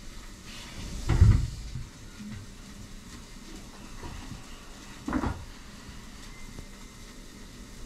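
Two short, dull thumps about four seconds apart, the first louder, over a steady background hum.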